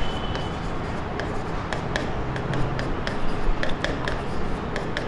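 Handwriting on an interactive whiteboard screen: a pen tip tapping and scraping in irregular short clicks as letters are written, over a steady background hiss.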